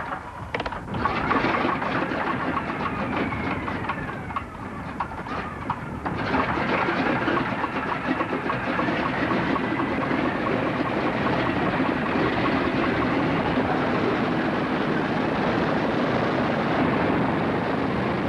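Piston-engined propeller aircraft running, with a falling whine in the first few seconds and a sudden change about six seconds in to a steady drone.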